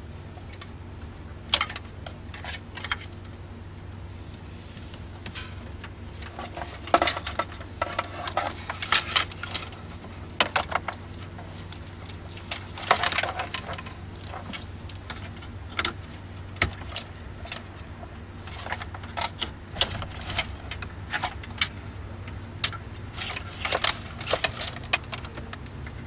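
Plastic wiring-harness connectors and loose wires clicking and rattling in irregular clusters as they are unlatched, pulled apart and plugged together behind a truck's radio. A steady low hum runs underneath.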